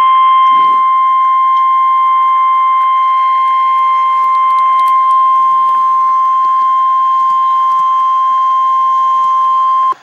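NOAA Weather Radio 1050 Hz warning alarm tone: one loud, steady, single-pitch tone that cuts off sharply after about ten seconds. It is the attention signal that announces an emergency weather alert message.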